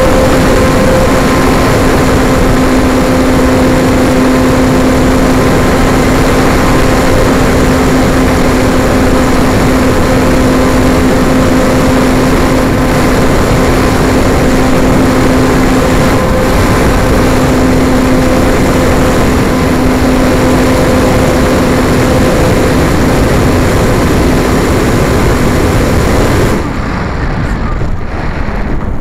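RC airplane's motor and propeller running steadily in flight with a constant tone over loud airflow noise. Near the end the motor cuts out suddenly and only wind rushing past the airframe remains: the radio-control failsafe has stopped the propeller after a signal glitch.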